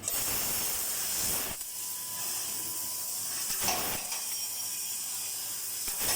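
LX3015FT fiber laser cutting machine at work: a steady high hiss of assist gas jetting from the cutting nozzle. It starts abruptly, with a brief swell a little past the middle.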